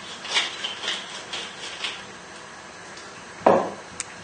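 Wooden pepper mill being twisted over fish fillets, a rasping grind about twice a second that stops about two seconds in. Near the end there is a single knock and a sharp click as the mill is set down on the worktop.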